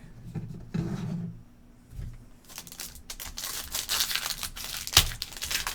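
Foil trading-card pack being torn open and its wrapper crinkled, starting about halfway through, with one sharp snap about five seconds in.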